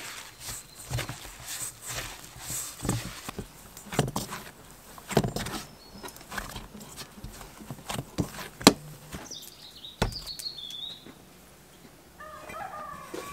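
Hands kneading a coarse dough in an enamel bowl: soft squishing with dull knocks of knuckles against the bowl, one sharp knock about two-thirds of the way through. A bird chirps briefly in the middle, and near the end a farmyard fowl calls several times.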